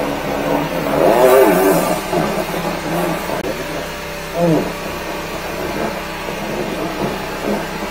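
Engine of a 13-horsepower high-pressure sewer jetter running steadily while the jetting hose clears a drain line.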